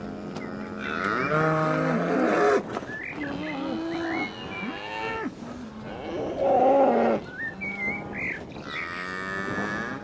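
Holstein dairy cows mooing, several long calls one after another and overlapping, the loudest about six and a half to seven seconds in.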